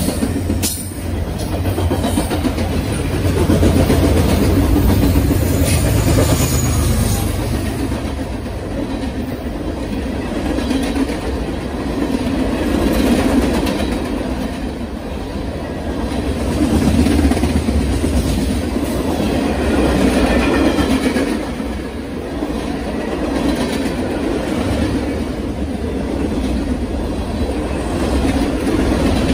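Freight train cars rolling past: double-stack container cars, boxcars and covered hoppers, their steel wheels rumbling and clacking over the rail joints. The sound swells and eases every few seconds as the cars go by, with a few sharp clanks near the start.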